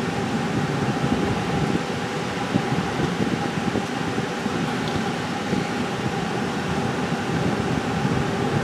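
Steady running noise inside a slow-moving tour vehicle's cabin: the engine and air-conditioning fan, with a faint steady whine over the rumble.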